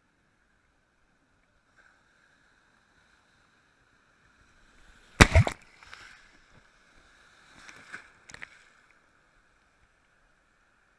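Surf water splashing against a camera at the water's surface: one sharp, loud splash about five seconds in, then a few smaller splashes and slaps around six and eight seconds, with little else heard between them.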